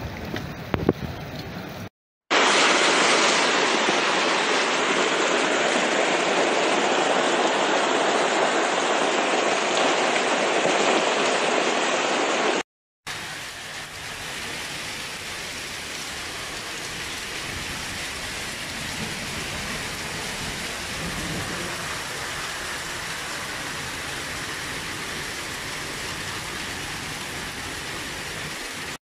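Heavy downpour of rain and hail hammering onto a paved street, a dense steady hiss with no let-up, heard in three separate stretches with short cuts between them. The stretch from about two to about thirteen seconds in is loudest; the last stretch is a quieter steady hiss. A single sharp knock sounds just under a second in.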